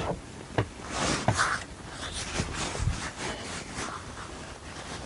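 Handling noises close to the microphone: rustling and rubbing with several light knocks.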